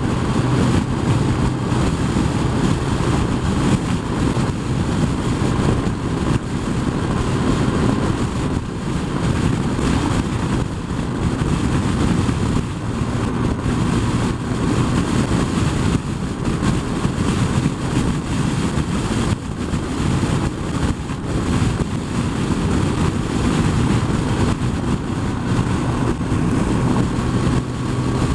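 Sport-touring motorcycle cruising steadily at freeway speed: a dense rush of wind over the camera's microphone, with the engine's steady low hum underneath.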